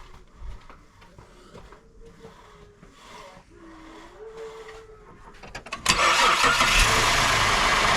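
Holden VZ Alloytec 3.6-litre V6 starting for the first time after an oil change, on fresh oil. It cranks briefly about five and a half seconds in, catches at once and settles into a steady idle.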